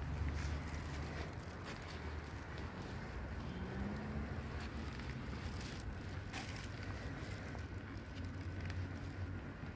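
Steady low rumble of distant city street traffic, with a few faint clicks.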